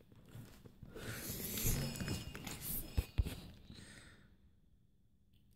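Small hands rustling and crinkling the wrapper of a chocolate surprise egg as it is opened, with two short soft knocks about three seconds in before the rustling fades.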